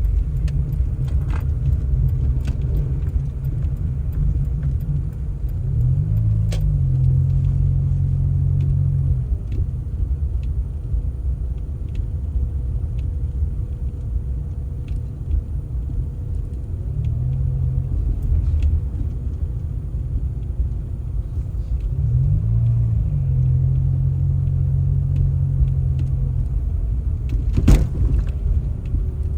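A motor vehicle's engine running with a steady low rumble. Twice a higher note rises in and holds for a few seconds, and there is a sharp knock near the end.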